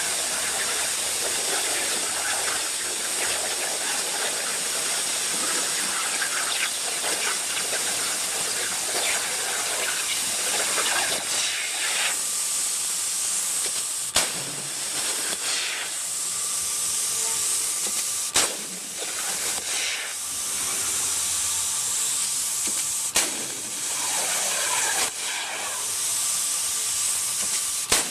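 CNC plasma cutter's torch running, a loud steady hiss of the plasma arc and its compressed air, broken by a few sharp clicks, with a faint steady whine in the second half.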